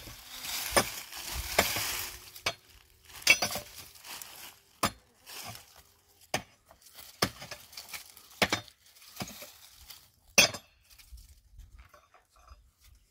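Metal-headed digging tool striking and scraping stony ground. Gravelly scraping comes first, then separate sharp clinking strikes about once a second, with the last loud one about ten seconds in.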